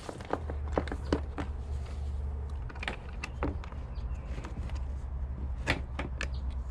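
Irregular small clicks and taps of hand work fitting electrical hardware and screws, over a steady low hum that starts about half a second in.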